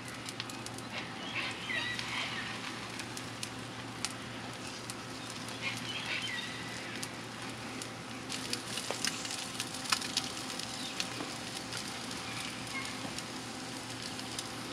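Eggs and bread sizzling on the hotplate of a Coleman gas camp stove, a steady frying hiss dotted with small spitting crackles.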